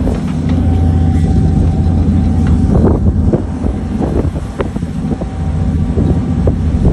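Ferry's engine running with a steady low drone, eased off for a while around the middle and strong again near the end, with wind buffeting the microphone.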